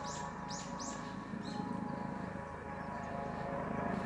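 Birds chirping, a quick series of short downward-sweeping high calls in the first second and a half, then stopping. Under them runs a steady low background hum.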